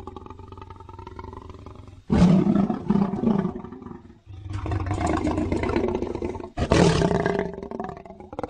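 Lion growls and roars, made as the voice of the extinct Mosbach lion: a soft, drawn-out growl, then a loud roar about two seconds in. A rumbling growl follows, and another loud roar comes near the end.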